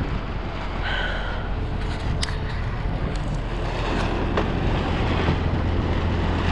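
Strong gusting wind rumbling heavily on the microphone, while the loose plastic sheeting of a hoop greenhouse flaps with a few sharp crackles. A brief squeak about a second in.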